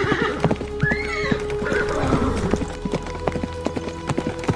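Horse hooves clip-clopping irregularly, with a short whinny about a second in, over background music.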